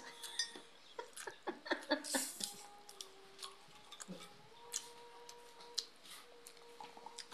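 Light clicks and taps of a drinking glass and spoons on plates at a dining table, scattered irregularly through, with faint steady tones underneath.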